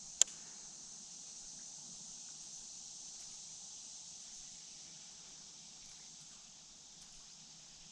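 Steady high-pitched insect chorus, with one sharp click a fraction of a second in.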